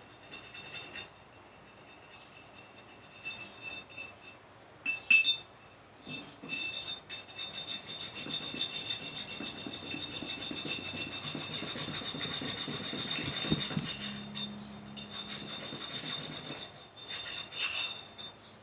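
Abrasive scrubbing on rusty metal, the sound of rust being rubbed off. A few short scrapes come first, then continuous rubbing from about six seconds in until near the end, with one more short burst just before it stops.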